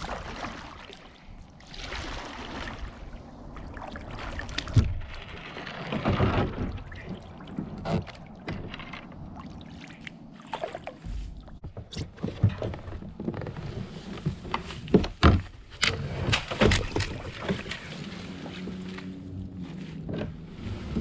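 A kayak being paddled: paddle strokes splashing and swishing in the water, with sharp knocks now and then.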